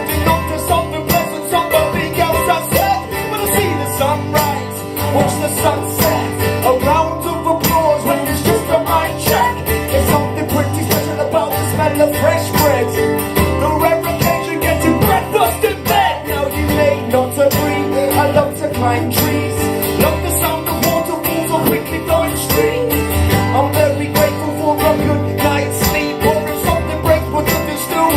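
Live band music: an instrumental passage of a song, with guitars strumming over steady bass notes that change every couple of seconds and a wavering melody line above.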